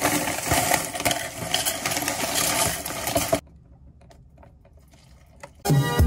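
Breakfast cereal poured from a plastic bag into a plastic cup, a dense rattling that stops about three and a half seconds in. A quiet stretch follows, and music starts near the end.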